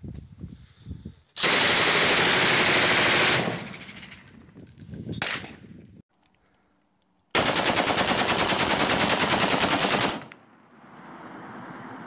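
Belt-fed light machine gun firing two long bursts of fully automatic fire, each about two to three seconds of rapid, evenly spaced shots.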